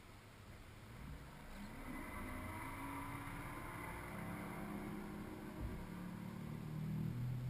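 A motor engine running, growing louder from about a second in, its pitch shifting up and down.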